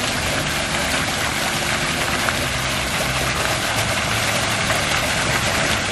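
Steady mechanical noise, an engine running continuously with a broad, even hiss over it.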